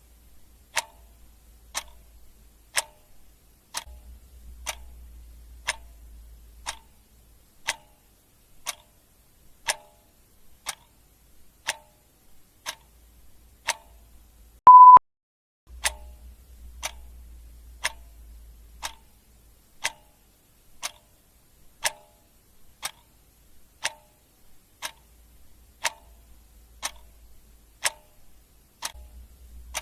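Clock ticking steadily, about one tick a second, with a single short high-pitched beep about halfway through, louder than the ticks.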